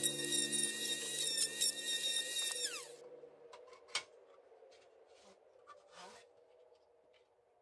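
Electric random orbital sander running steadily on wood with a high whine and hiss, then switched off about three seconds in, its pitch sliding down as it spins to a stop. After that, a faint sharp click and a short soft rub.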